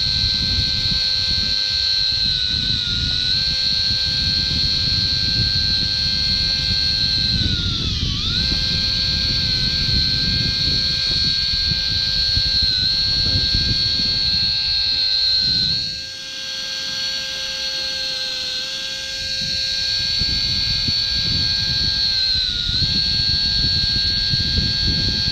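Electric jigging reel's motor whining steadily as it winds, its pitch sagging briefly several times, most deeply about eight seconds in, as the motor slows under load. A low rumbling noise runs underneath and fades for a few seconds past the middle.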